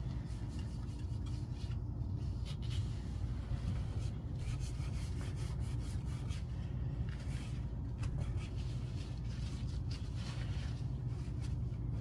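Damp paper towel rubbing and wiping on a door and its frame around the hinges, in short irregular swipes, over a steady low hum.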